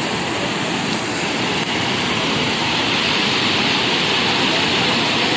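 Fast-flowing floodwater rushing and churning over a road edge: a loud, steady roar of turbulent water that grows a little louder and brighter about two seconds in.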